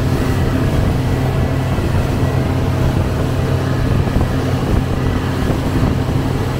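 Boat engine running steadily under way with a low, even hum, mixed with the rush of water churning in the wake.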